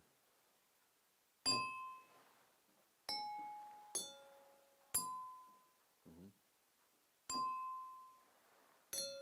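Six single strikes on small ringing objects, each giving a clear bell-like note that dies away within about a second. The strikes come unevenly spaced and land on three different pitches, the highest most often and the lowest last.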